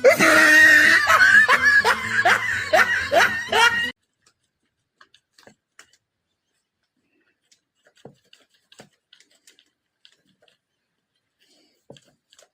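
A run of laughter, in rapid repeated pulses for about four seconds, then it stops and only a few faint clicks remain.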